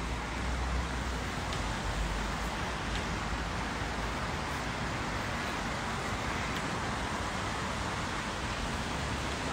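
Steady outdoor background noise: an even hiss with a low rumble underneath, unchanging throughout.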